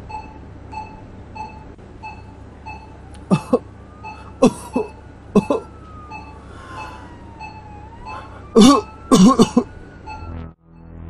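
Hospital patient monitor beeping steadily, about three beeps every two seconds. Over it a person coughs in short fits, the loudest cluster coming near the end.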